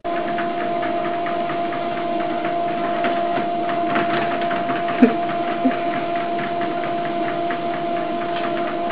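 Electric treadmill running, a steady motor whine under a fast, irregular ticking clatter from the moving belt, with two cats walking on it.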